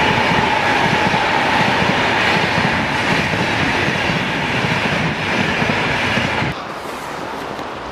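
Intercity passenger coaches rushing past at speed, a dense rolling roar of wheels on rails with rapid clattering over the rail joints. About six and a half seconds in the noise drops suddenly to a quieter hiss.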